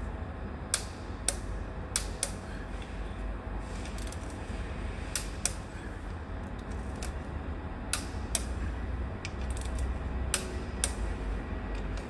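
A series of about a dozen sharp mechanical clicks, irregularly spaced and some in quick pairs, over a steady low rumble.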